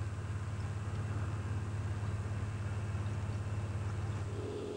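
A steady low engine drone with a fast, even pulse. Near the end it gives way to a higher-pitched engine hum.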